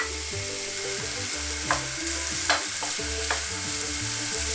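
Diced carrots, zucchini and peppers sizzling in a frying pan while a wooden spatula stirs them, with a few sharp knocks of the spatula against the pan in the middle.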